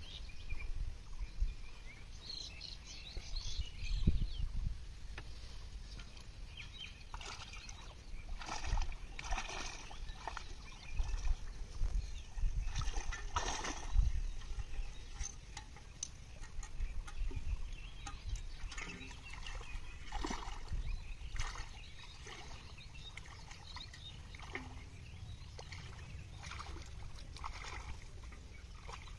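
Pond water sloshing and splashing irregularly as a man wading in it handles a cast net, pulling the net through the water and picking fish out over a metal pot.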